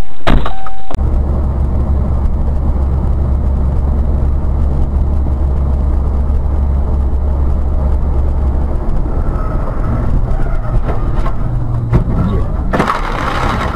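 Dashcam recording of a car driving: steady engine and road rumble with a strong low drone that weakens about nine seconds in. It follows a loud distorted sound that cuts off abruptly about a second in, and a short harsh noise burst comes near the end.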